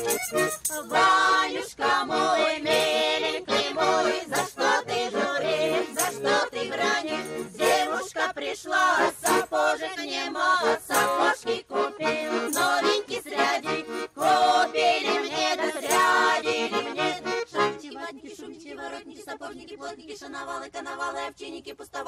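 Russian folk ensemble singing a lively song with two accordions, a wooden treshchotka plate rattle clicking in rhythm. About 18 s in the singing drops away and the music becomes quieter and thinner.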